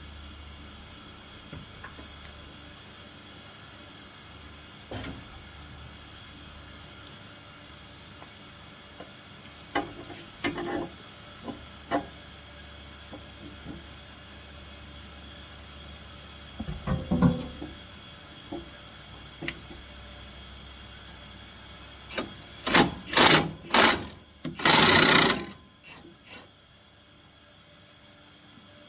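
Hand-tool work on a sawmill edger while a bearing is being removed: scattered clicks and knocks, a short cluster of louder knocks partway through, and a run of loud rattling bursts near the end, over a steady low hum that drops away after them.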